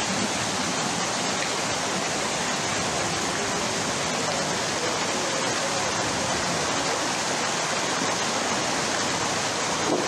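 Muddy floodwater rushing steadily down a road after torrential rain, a continuous wash of water noise with no letup.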